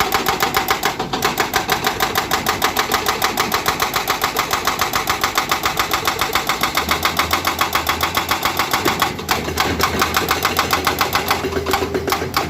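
Excavator-mounted hydraulic breaker hammering rock in a rapid, even run of blows, several a second, with a brief break about nine seconds in. The excavator's diesel engine runs underneath, with a steady low hum joining about seven seconds in.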